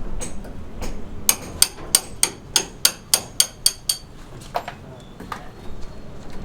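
Hammering on a building site: a quick run of about ten sharp, ringing strikes, roughly three a second, with a few single knocks before and after.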